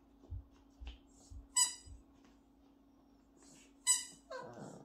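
Two short, high-pitched squeaky toots from a baby's handheld toy, a bit over two seconds apart. Just after the second comes a brief lower voice sound that falls in pitch.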